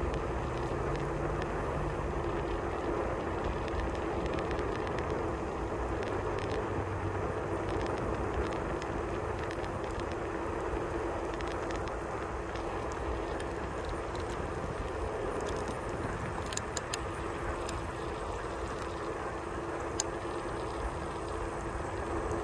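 Steady rolling noise of riding along a paved trail: tyres on asphalt and air rushing past, with a constant low hum underneath and a few sharp ticks in the last several seconds.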